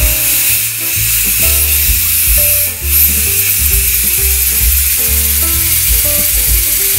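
Small homemade model engine running on air fed through a hose, its large flywheel spinning fast, giving a steady hiss of escaping air. Background music with a bass line plays over it and is the louder part.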